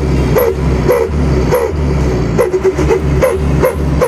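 Loud background music with a fast steady beat and heavy bass, with short bending high notes repeating over it.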